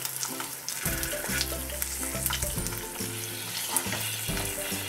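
An egg frying in coconut oil in a carbon steel pan, just flipped: a steady sizzle with small crackles of spattering oil.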